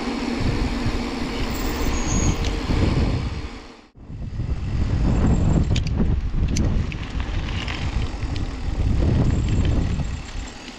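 Wind buffeting the microphone of a mountain bike rider going fast downhill, a loud rushing rumble mixed with tyre noise. It cuts out abruptly about four seconds in, comes straight back, and a few sharp clicks follow a couple of seconds later.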